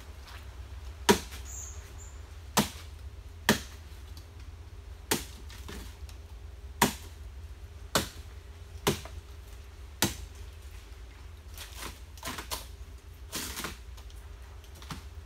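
Chopping strikes on nipa palm stems: eight sharp single blows about one to one and a half seconds apart, then a quicker run of softer cracks near the end.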